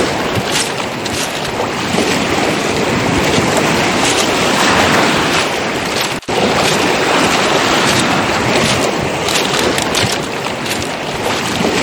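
Footsteps crunching on beach pebbles over steady waves washing on the shore. The sound cuts out for an instant about halfway through.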